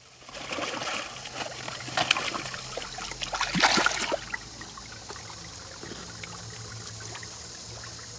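Water splashing as fish churn in a seine net dragged through a shallow pond, loudest about three and a half seconds in. After about four seconds it settles into a steady trickling rush of water.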